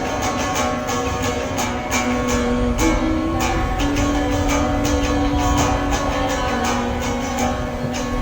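Guitar-led music: strummed guitar chords and held notes over a steady, quick rhythm.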